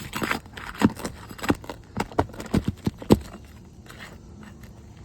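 A quick run of irregular sharp knocks and scrapes on asphalt roof shingles, about a dozen in the first three seconds or so, then quieter.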